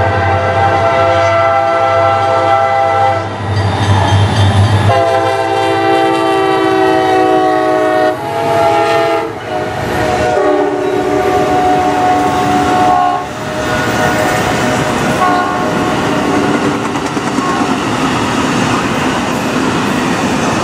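Diesel locomotive horns sounding a series of long chord blasts for grade crossings, first over a freight locomotive's low engine rumble, then, after a cut about five seconds in, from an Amtrak P42 passenger locomotive as it passes. Toward the end the horn fades and the noise of passenger cars rolling past on the rails takes over.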